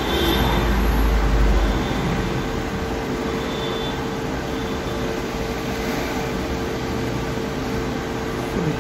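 A fan running steadily: an even whirring with a constant mid-pitched hum. A low rumble sits under it for the first couple of seconds.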